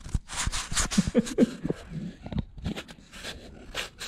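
A dog sniffing and breathing right at the microphone in a string of short puffs, with a few brief squeaky snuffles about a second in.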